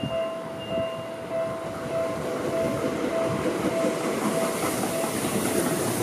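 Level crossing warning bell ringing in a steady repeating pulse, under the growing rail noise of a Seibu 001 series Laview limited express approaching and passing close by. The wheel and rail noise swells from about two seconds in and is loudest near the end.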